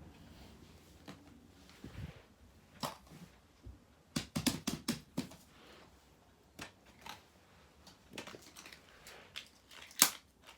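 Fidget toys being handled: scattered small clicks and taps, a quick run of clicks about four seconds in, and one sharp, loud click near the end.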